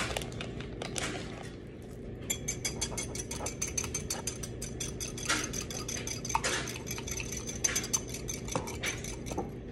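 Small wire whisk beating eggs and shredded cheese in a ceramic mug, its metal tines clinking rapidly against the mug. The clinking starts about two seconds in and stops just before the end.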